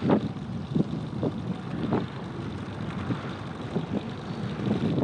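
Small boat's outboard motor running under wind buffeting the microphone, with a few short, irregular bumps.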